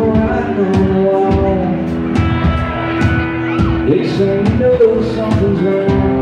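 Live solo acoustic song: a man singing, holding and bending long notes, over an acoustic guitar strummed in a steady rhythm.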